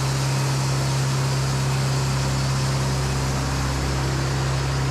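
Sawmill machinery running steadily: a constant low hum under an even hiss.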